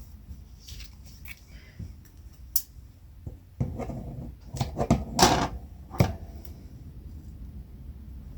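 Double-sided sticky tape being pulled off its roll and torn, with paper and card being handled on the table: scattered light clicks and rustles, then a busier run of sharp rips and taps, the loudest about five seconds in.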